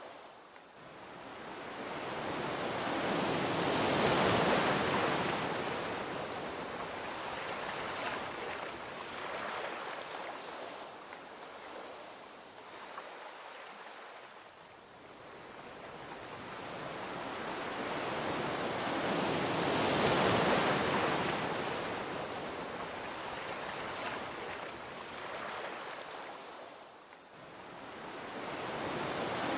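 Gentle ocean waves washing onto a beach. Two slow swells each build over several seconds to a broad hiss of surf, about four and twenty seconds in, then fade back down.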